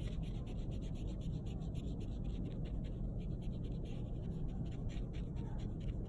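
Paintbrush bristles brushing paint onto paper in quick, repeated short strokes, a soft scratchy swishing several times a second, over a low steady hum.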